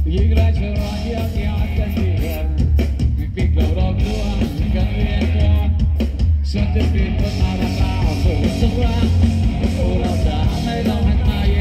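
Rock band playing live through a PA: a male singer over electric guitars, bass guitar, keyboard and drums, with a strong steady bass.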